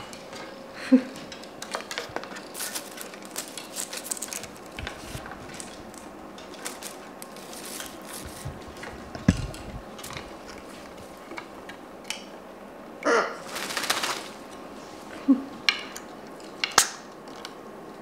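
Irregular clicks, knocks and rustling as wet macaws climb about and settle on a wooden tree perch, with a louder rustle of about a second, some thirteen seconds in.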